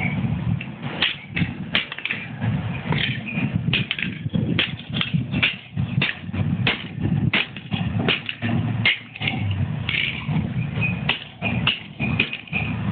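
Rapid, irregular knocks and bangs, several a second: the parts and circuit board of a broken LCD alarm clock being bashed.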